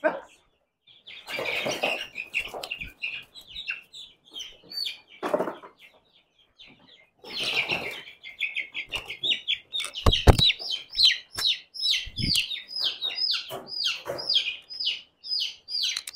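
Four-week-old chicks peeping rapidly in short, falling chirps, several a second. There are bursts of rustling in the first half and two low knocks in the second half.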